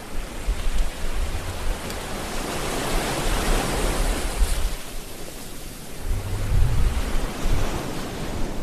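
Sea waves washing in, a broad hiss of surf that swells to a peak about three seconds in and then falls away, with low rumbling underneath.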